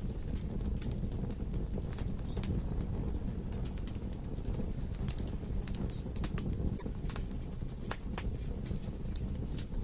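Wood logs burning in a fireplace: a steady low rumble of flames with irregular sharp crackles and pops, several each second.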